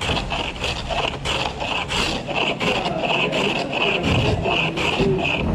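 Hand tool cutting wood in quick, even scraping strokes, about four a second.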